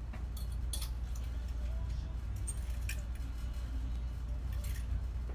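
Clothes hangers clinking and rustling as garments are taken off a rack, a few short sharp clinks over a steady low hum.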